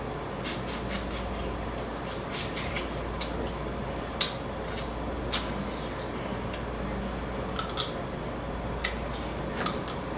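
Crawfish shells being cracked and peeled by hand during eating: sharp, irregular clicks and crackles over a steady low hum.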